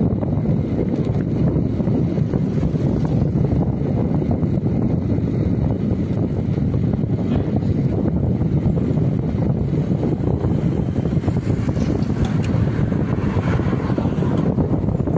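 Steady low rushing of wind over the microphone with tyre rumble on asphalt, from a bicycle being ridden along a paved street.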